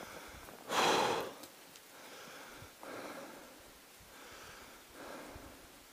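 A sharp, breathy snort or exhale about a second in, followed by softer breaths roughly once a second.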